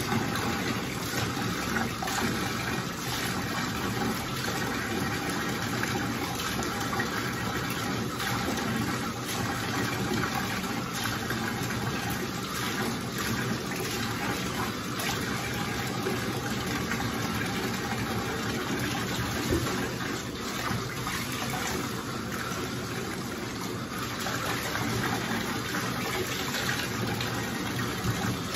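Shower water running steadily and splashing in a bathtub while a wet dog is rinsed.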